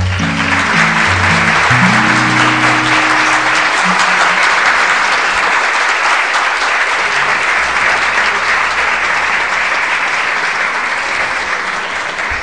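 Audience applauding loudly as a song ends, with the acoustic guitar's last chords ringing under the clapping for the first few seconds.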